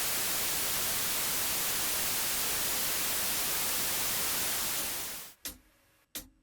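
Steady static hiss that fades out about five seconds in, followed by two short, sharp clicks.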